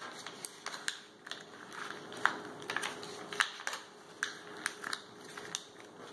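A sheet of paper being folded and creased by hand, with irregular crinkles and sharp little crackles as the folds are pressed flat.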